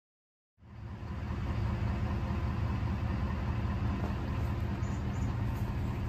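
Engine of a Lexion combine harvester running steadily with a deep rumble, fading in from silence about half a second in.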